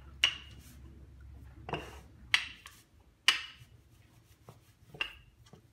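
Wooden rolling pin knocking and clacking against the counter as paratha dough is rolled out: about five sharp knocks at uneven intervals, the loudest three near the start, in the middle and just after it.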